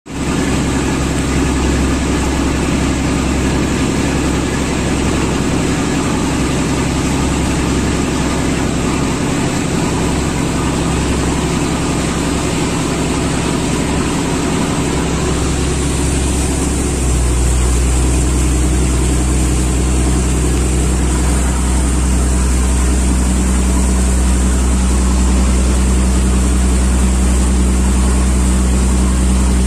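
A boat's engine running steadily. A little past halfway its low hum turns deeper and louder.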